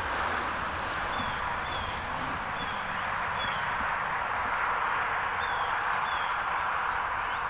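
Small birds chirping outdoors, short falling notes about twice a second with a brief quick trill midway, over a steady background hiss.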